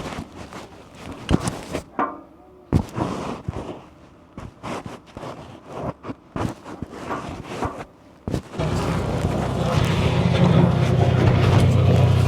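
Irregular metal clinks and knocks of tools working on hydraulic pipe fittings. About eight seconds in, an engine starts sounding and runs steadily, louder than the knocks.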